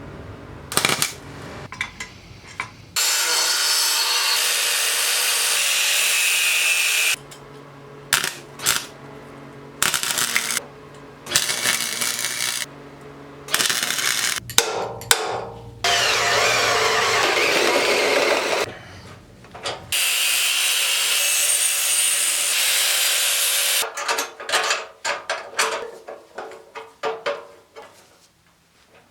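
Power tools at work in several stretches of steady whirring noise, each a few seconds long, with abrupt cuts between them and clusters of clicks and knocks in the gaps.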